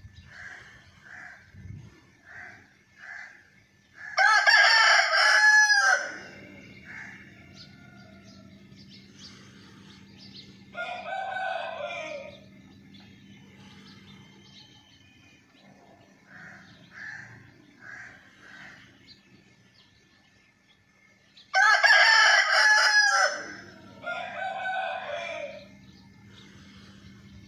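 Rooster crowing: two loud cock-a-doodle-doos, each about two seconds long, one about four seconds in and one near the end, with fainter calls between them and runs of short clucking notes.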